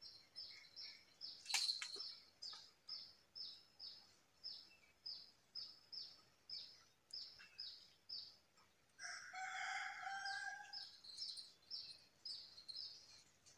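Birds calling: a short, high, falling note repeated about three times a second, with a longer, lower call with several overtones lasting about two seconds from about nine seconds in.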